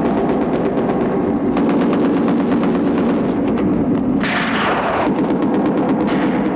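Battle sounds: rapid, dense gunfire crackling without pause, with a louder burst, like an explosion, a little past four seconds in.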